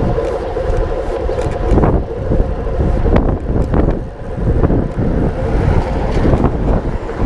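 Loud low rumble with irregular short knocks and clicks scattered through it, typical of a moving microphone picking up wind and handling noise.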